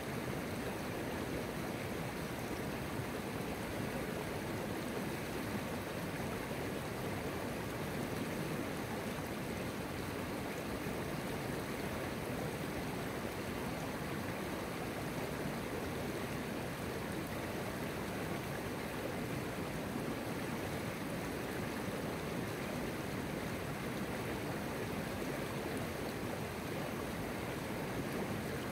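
A river flowing: a steady, even rush of running water.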